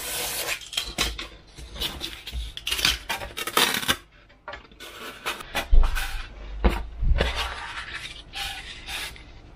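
Hand work on a wooden desk: a steel ruler and craft knife clinking as they are moved and set down, and sheets of 6 mm Depron foam rubbing and tapping as they are shuffled and laid flat. It is an irregular run of knocks, clinks and scrapes, heaviest about six to seven seconds in.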